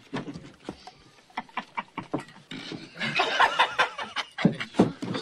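A run of irregular knocks and clatters of a wooden chair and boots on the floor, then a short stretch of voices about three seconds in and a few more knocks near the end.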